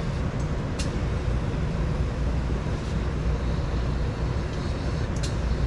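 Steady low mechanical drone, with two short airy hisses, one about a second in and one near the end.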